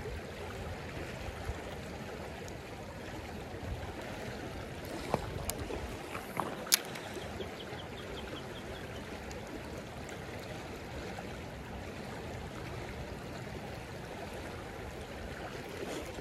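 Fast, choppy creek water rushing steadily, with a few sharp clicks around the middle.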